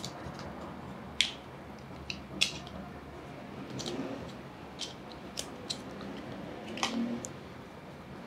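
Silk suture packet being torn open by hand and its paper inner folder handled: scattered sharp crinkles and crackles of foil and paper. The loudest come about a second in, around two and a half seconds in, and near seven seconds in.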